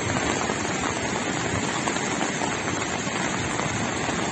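Floodwater rushing through a street: a steady, even rush of water noise.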